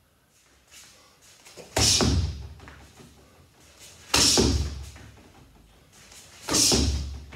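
Three heavy strikes land on a freestanding torso striking dummy, about two and a half seconds apart, each a sharp thud that dies away quickly.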